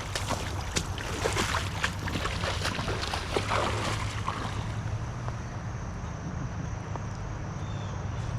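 River water rushing around a wading angler, with splashing and sloshing strokes through the first four seconds or so, then a steady rush.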